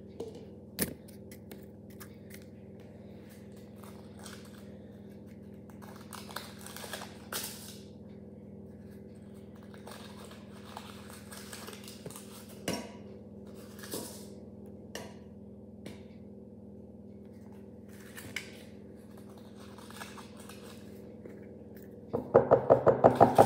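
Silicone spatula scraping batter off the metal wire beaters of an electric hand mixer, with scattered small clicks and scrapes. Near the end a quick run of about ten loud knocks, several a second, as a beater is knocked against a glass jug to shake off batter.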